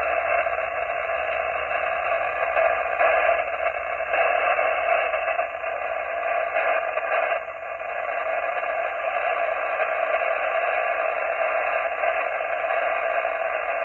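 Steady static from an HF amateur radio receiver tuned to a single-sideband voice channel, heard through the radio's speaker as hiss limited to the narrow voice passband, with no station coming through.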